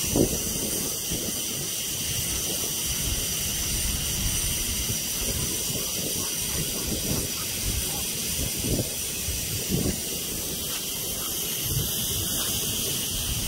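Water sprinkler spraying with a steady hiss, with a few short, low sounds underneath.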